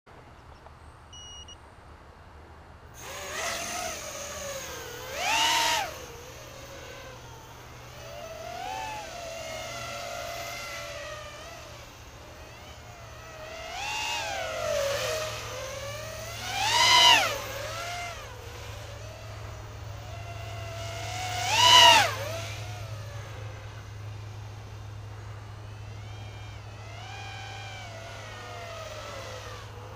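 Eachine 180mm tilt-rotor FPV drone's motors, on a 4S LiPo, whining as it lifts off about three seconds in and flies around, the pitch rising and falling with throttle. It gives three loud, high screams as it punches through, at about five, seventeen and twenty-two seconds in.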